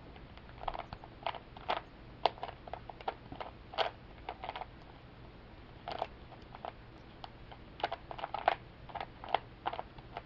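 Plastic 3x3 Rubik's Cube being turned by hand in a timed solve: irregular clusters of sharp clicks and clacks as the layers snap round.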